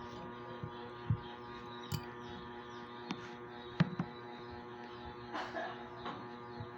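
A steady electrical hum with a few sharp light clicks and taps spread through it, and a short rustle about five and a half seconds in.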